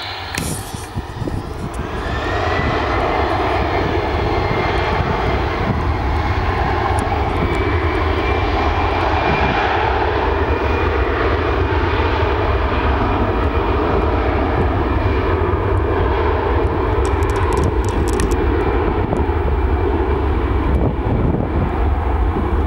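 The twin rear-mounted Rolls-Royce Tay turbofans of a Fokker 100 spooling up to takeoff power on its takeoff run. A whine rises over the first two or three seconds, then the engines run steady and loud at full thrust.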